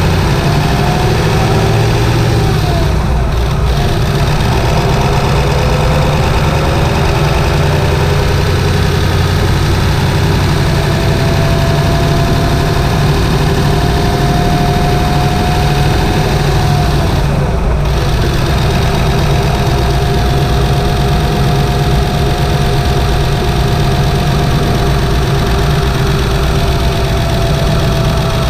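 A 1997 Ford F-250's 7.3-litre Powerstroke turbocharged V8 diesel running steadily under way, heard from the engine bay. A whining tone rides over it and dips twice, about 3 seconds in and near the middle, before rising again.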